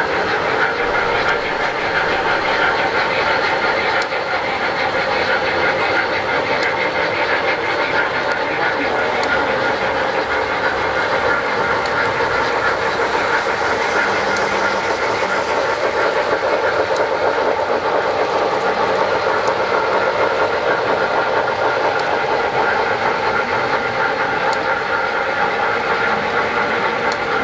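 Several O-scale model trains running on the layout: a steady mix of electric-motor and gear whine with the rumble of wheels on track, holding even throughout.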